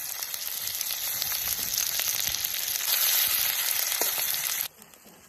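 Food frying in hot oil in a pan, a steady loud sizzle with a few faint ticks. It cuts off abruptly near the end.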